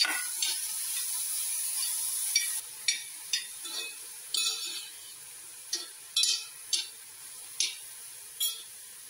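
Chopped vegetables sautéing in ghee in an uruli, with a steady sizzle for the first two or three seconds. A spoon stirs and scrapes them against the pan in about a dozen short, irregular strokes.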